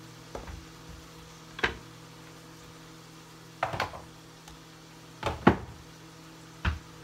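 Kitchen utensils being handled and set down on a wooden cutting board and counter: a handful of sharp knocks and clacks a second or two apart, two of them close together and loudest a little past the middle.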